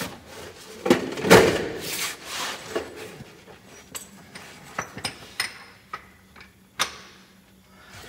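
Irregular metallic clanks, knocks and tinks of tools and parts being handled under a semi truck during drive shaft work. The loudest knock comes about a second in, and some of the later tinks ring briefly.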